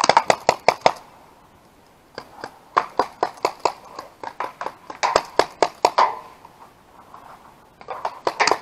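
Paintball markers firing in rapid bursts, about six to eight shots a second, in four volleys with short pauses between.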